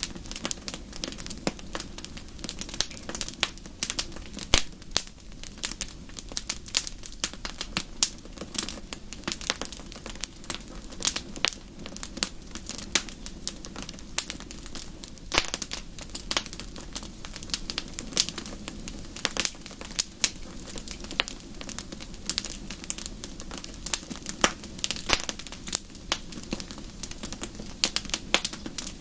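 Wood fire crackling in a fireplace: many irregular sharp pops and snaps, some much louder than the rest, over a steady low hiss of burning.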